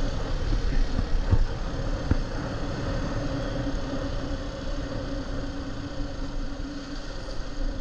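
Small motorbike engine running steadily at cruising speed, a level hum under wind and road noise, with a couple of light bumps in the first few seconds.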